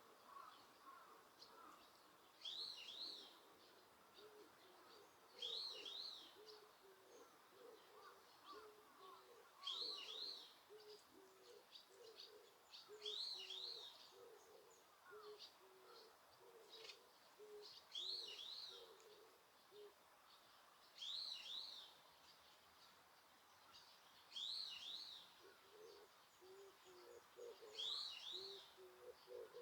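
Wild birds calling, faint: one bird repeats a short, high song phrase about every three to four seconds, about eight times, over a steady run of low, repeated notes from another bird.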